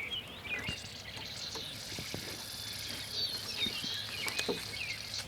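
Small birds chirping in short, repeated calls, with a few faint clicks and taps.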